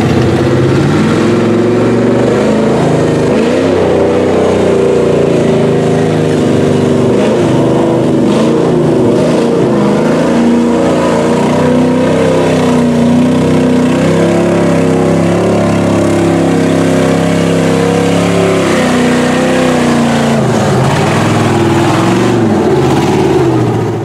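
Engines of lifted Chevy mud trucks running and revving as they drive through the river.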